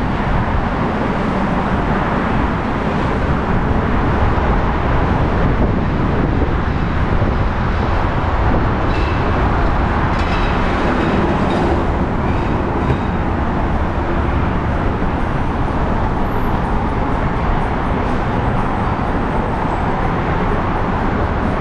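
Steady running noise of a vehicle in motion, with a few faint high squeal-like tones around the middle.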